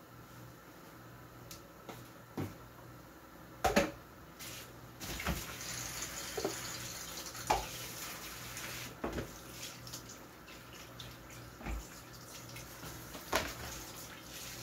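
Kitchen tap running into a sink while lettuce is rinsed by hand; the water runs for a few seconds in the middle. Scattered sharp knocks and clatter from handling things in the sink.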